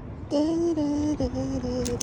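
A person humming or singing two long held notes, the second a little lower than the first.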